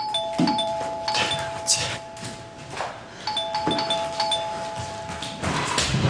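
Two-note doorbell chime, a higher note then a lower one, rung at the start and again about three seconds later, with scattered thumps and clatter between the rings.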